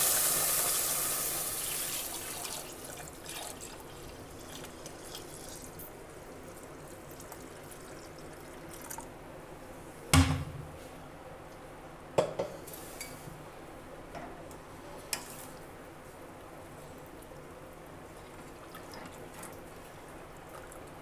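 Milk poured into a steel pot of ghee-fried vermicelli, a splashing pour that fades out over the first two seconds. Then a few sharp knocks of a wooden spoon against the steel pot, the loudest about ten seconds in.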